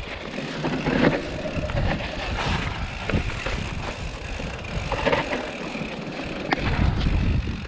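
Mountain bike rolling down a rocky dirt singletrack: tyres crunching over dirt and loose stones, with a low rumble and the bike rattling, and a few sharp knocks from rocks along the way.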